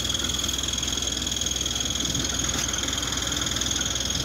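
Rice combine harvester's diesel engine running steadily, a low even hum with a steady high-pitched whine over it.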